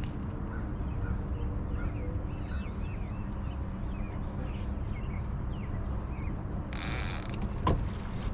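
Birds chirping over a steady low rumble, with a brief hiss about seven seconds in and a sharp knock just after it.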